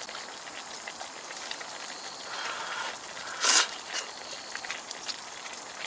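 A pot of kimchi hot pot simmering on a camp stove with a steady faint bubbling crackle. A short, louder breathy sound comes about three and a half seconds in, from the eater at the pot.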